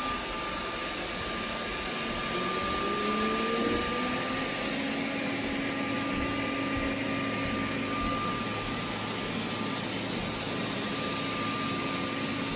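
Robot vacuum cleaners running on carpet, the Roborock S5 closest, making a steady whir with a thin high whine. About two seconds in, a motor tone rises in pitch over a couple of seconds and then holds steady.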